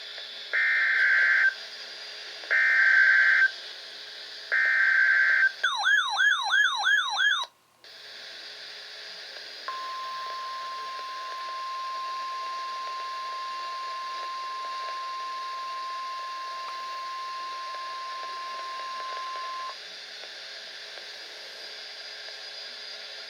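Emergency alert broadcast opening: three one-second bursts of the SAME digital header, a raspy data screech, followed by a fast warbling tone that sweeps downward about four times a second. After a brief gap comes the steady single-pitch NOAA Weather Radio 1050 Hz warning alarm tone, held for about ten seconds, over constant radio hiss.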